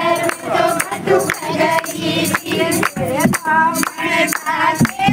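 Women singing a Haryanvi folk song (lokgeet) together, over steady rhythmic hand clapping.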